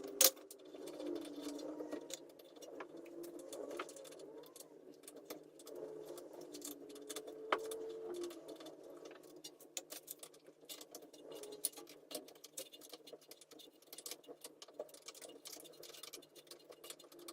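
Scattered light clicks and taps of hand tools and metal parts being handled while working on a car's rear brake caliper.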